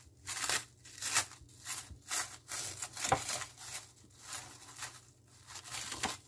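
Plastic cling film being peeled off a bowl and crumpled in the hand, crackling and crinkling in irregular bursts.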